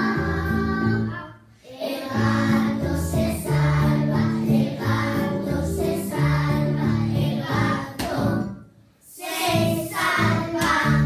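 A group of young children singing a Spanish children's song together over a recorded backing track with a steady bass line. The music drops out briefly twice, about a second and a half in and again near the end.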